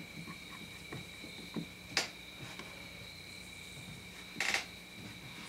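A screwdriver snugging the small cover screws on a Briggs & Stratton carburetor: scattered light metal clicks and taps, a sharper click about two seconds in and a short louder clatter near the end. A faint steady high whine sits underneath.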